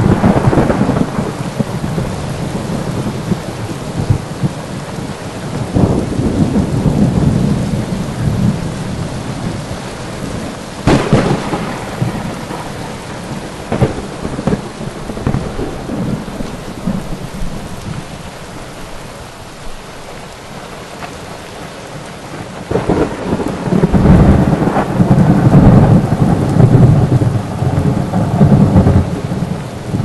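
Thunderstorm: rain falling steadily with rolling thunder. There is a sharp crack about 11 seconds in, and the loudest, longest rumble rolls in about 23 seconds in and lasts several seconds.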